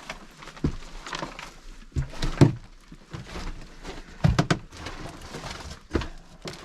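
Irregular knocks, clunks and rustling of debris being handled and stepped on in a cluttered room, with a few louder clatters about two and a half and four seconds in.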